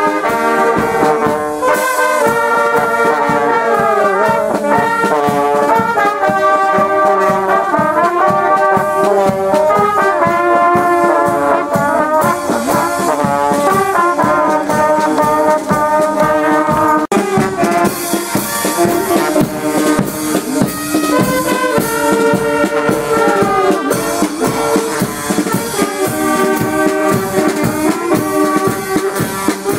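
Brass band music: several horns, trombone- and trumpet-like, playing a melody together.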